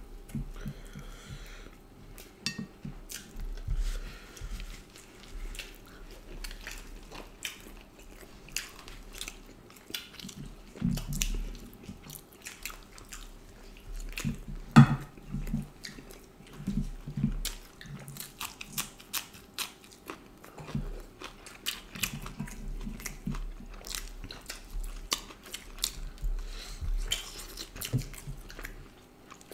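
Close-miked eating sounds of two people: chewing, biting and wet mouth smacks as they eat duck curry and rice-flour roti by hand, in an irregular patter of short clicks. One sharp click about halfway through stands out as the loudest.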